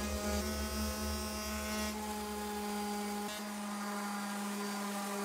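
Handheld electric sander running steadily on wood, a steady motor hum with a rubbing sound of sanding.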